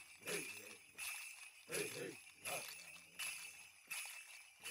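Bells worn by Hopi ceremonial dancers jingling faintly in a steady rhythm, a shake every half second or so, as the dancers step in time.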